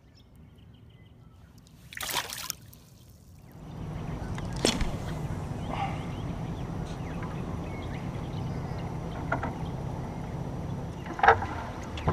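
A canoe moving along on the water while trolling: a steady rush of water and hull noise with a low hum, starting a few seconds in after a short whoosh, with a couple of brief knocks.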